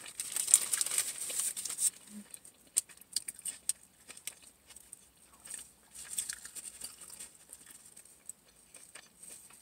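Paper sandwich wrapper crinkling as the sandwich is handled, loudest in the first two seconds. Then come quieter scattered rustles and small sharp clicks.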